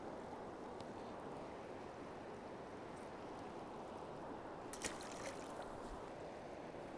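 River current flowing, a steady even rush of water. Two short sharp clicks come about five seconds in.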